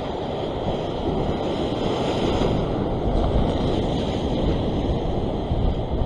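Ocean surf washing against the rocks, with wind buffeting the microphone.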